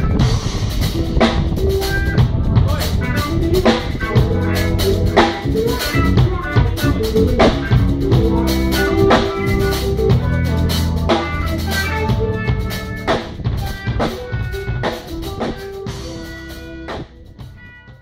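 Live drum kit and electric keyboards jamming, the keyboard playing the bass line in the left hand with chords above, under steady drum hits. The playing thins out and dies away over the last few seconds.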